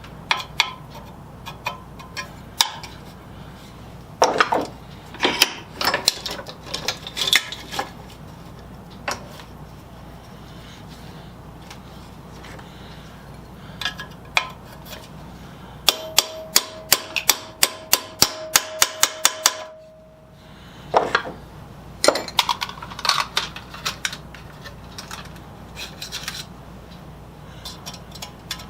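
Metal tools and parts clinking and knocking as they are handled and set down. Past the middle comes a quick run of about five even clicks a second for roughly four seconds.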